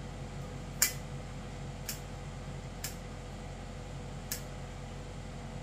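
Scissors snipping flower stems: four short, sharp snips about a second apart, the first the loudest, over a steady low hum.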